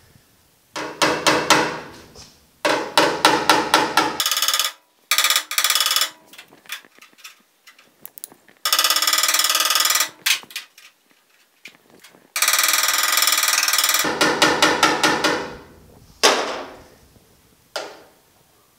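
Body hammer tapping quickly on the steel cab panel of a 1950 Chevy truck, in a string of short bursts of rapid blows that make the thin sheet metal ring, knocking down high spots around the repaired mirror mount.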